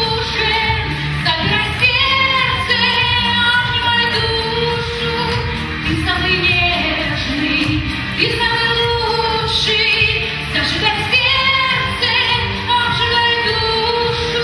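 Pop song with a woman singing over a steady backing track.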